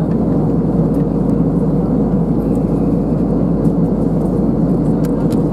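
Airliner cabin noise in cruising flight: a steady, unchanging low rush heard from inside the cabin.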